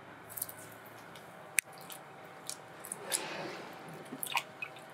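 A few light clicks and one sharp tap, then water sloshing as a hand moves about in a pot of water, followed by several quick drips near the end.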